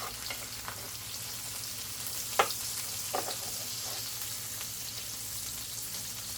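Tofu frying in a pan with a steady sizzle, left cooking too long without being turned. One sharp click about two and a half seconds in.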